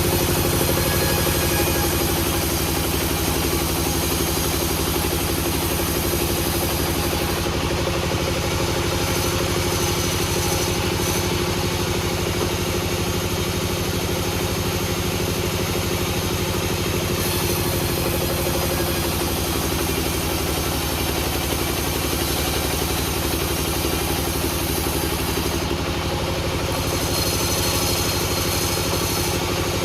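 An engine running steadily at one constant speed, with an even pulsing beat and no change in load.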